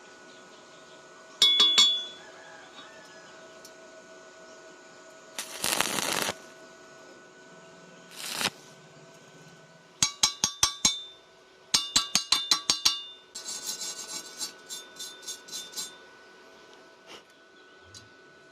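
Quick runs of sharp metal-on-metal strikes that ring, in groups of four to eight blows, typical of tapping or chipping steel with a hammer. Two short hissing rushes come in between.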